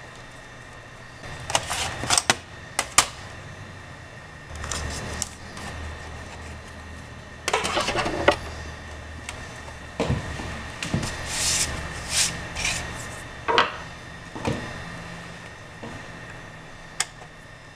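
Small screwdriver and hands working on the plastic base of a Dell Inspiron 1750 laptop: irregular clicks, scrapes and rattles of the tool and screws in clusters, over a steady low hum.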